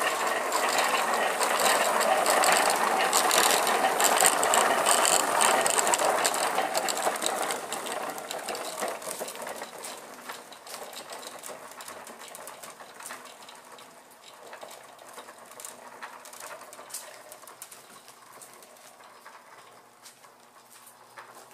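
Large homemade wooden wheel rig spinning, its bicycle chain running over the sprockets in a dense mechanical clatter. The clatter fades steadily from about six seconds in as the wheel slows, and it stays faint to the end.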